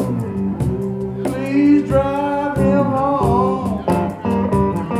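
Electric guitar playing a blues lead with bending, sliding notes, over a steady hand-struck cajon beat.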